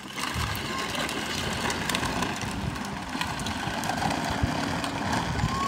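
A 12-volt battery-powered toy ATV driving across asphalt: a steady whir of its electric drive and the rumble of its hard plastic wheels on the rough pavement.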